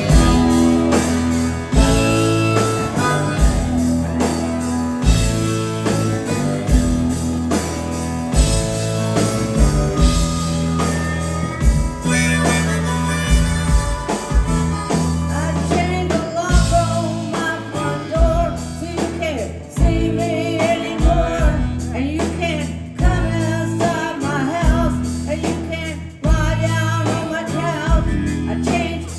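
Live rock band playing a blues-rock song, with electric guitar, bass and drums and with singing.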